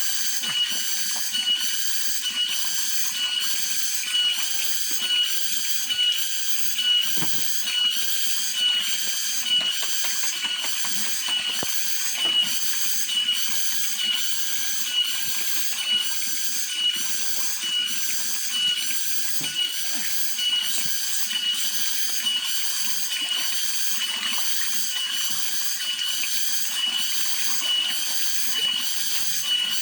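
Cicadas (tonggeret) singing in a loud, continuous high-pitched chorus that swells and fades in a steady rhythm, a little under one pulse per second.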